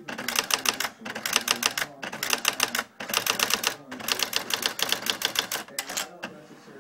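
Brother SX-14 electronic typewriter printing by itself in automatic mode: fast runs of keystrikes at about ten a second, broken by short pauses, with a quieter stretch just before the end.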